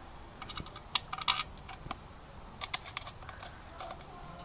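Irregular light metallic clicks and taps of hand tools and screws being handled while refitting a motorcycle engine cover.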